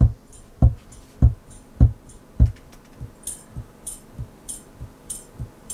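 A suitcase kick drum fitted with a tambourine head ("mala bumbo") beating a steady pulse of low thumps about 0.6 s apart, heard over the studio monitors. About three seconds in, the jingles of a foot-played tambourine (pandeirola) join in, and the kick thumps become softer.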